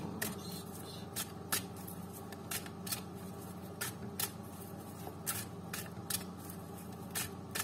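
Tarot cards being shuffled by hand: a string of light, irregularly spaced card snaps and flicks, roughly one or two a second, over a faint steady room hum.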